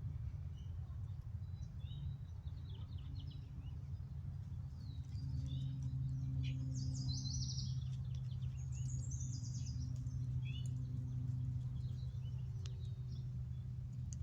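Small birds chirping and trilling in scattered short calls, busiest in the middle, over a steady low hum that grows a little louder about a third of the way in.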